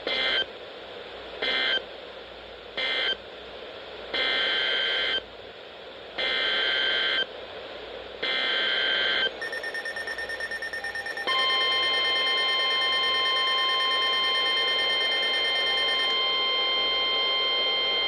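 Several weather radios going off for a severe thunderstorm warning, their alert alarms sounding together. Tone bursts come three short ones, then three about a second long. Then a fast-pulsing alarm, and from about eleven seconds in a steady alert tone with other alarm tones held under it.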